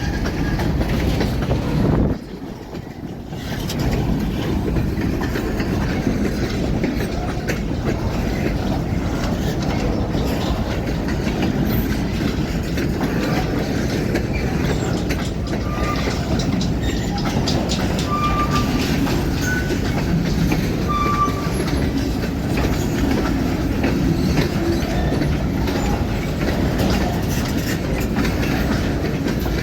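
A freight train rolling past slowly, with a steady rumble of wheels on rail and the clickety-clack of wheels over rail joints. It briefly drops in level about two seconds in.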